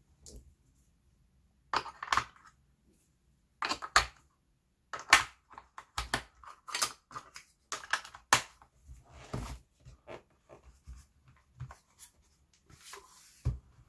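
AAA batteries being pressed into the plastic battery compartment of a Xiaomi Mi Smart Scale 2: a run of sharp plastic clicks and clatters at uneven intervals, some of them loud. Near the end the plastic scale is handled and turned over.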